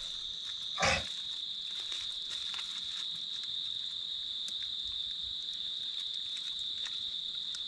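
Steady, high-pitched chorus of insects, held at one pitch throughout, with one short louder noise about a second in and a few faint clicks.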